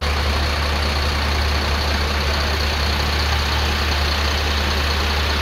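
Heavy fire truck engine idling steadily, with a strong low hum under a loud even wash of noise.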